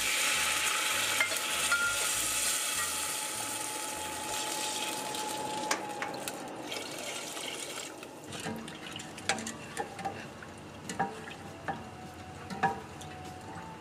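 Water poured in a stream into a hot stainless steel pot of fried spices and caramelised sugar, hissing and sizzling as it hits the hot pan. The hiss dies down after about six seconds. Then a wooden spoon stirs the liquid, knocking now and then against the side of the pot.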